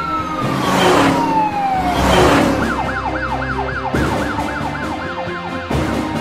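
Cartoon police car siren. First a long wail falls steadily in pitch as two vehicles whoosh past about a second apart. From about a third of the way in, a fast yelp siren sweeps up and down about four times a second, then stops shortly before the end, over background music.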